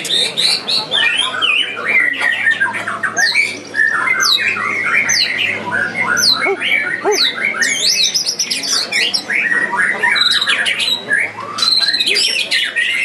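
Many caged white-rumped shamas singing at once in dense, overlapping song: quick falling whistles, fast chattering phrases, and a repeated high note near the end.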